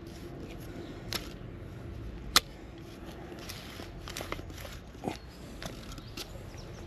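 Hand bulb planter pushed into crumbly garden soil and lifted out, with the crunch and crackle of soil clods and scattered clicks as the metal meets stones; one sharp click about two and a half seconds in is the loudest.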